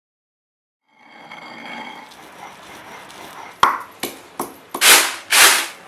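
Stone pestle pounding in a stone mortar (khalbatta): a few sharp knocks about a third of a second apart, then two longer, louder rough strokes near the end.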